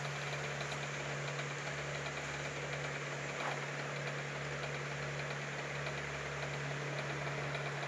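Steady low hum over an even background hiss.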